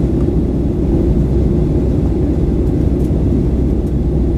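Steady, loud cabin noise of a Boeing 737-900 with CFM56-7B turbofan engines, a dense low rumble heard from inside the passenger cabin.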